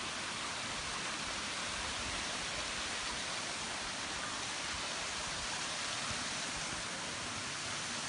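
Steady rushing of a waterfall: an even hiss of falling water with no breaks or changes.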